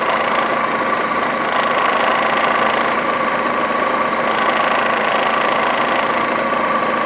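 Mercedes M111 four-cylinder petrol engine idling steadily, with the belt-tensioner damper chattering. This is typical of worn-out bushings in the damper.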